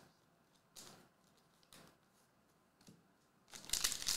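A few soft rustles of trading cards being handled. About three and a half seconds in, a foil card pack crinkles loudly as it is torn open.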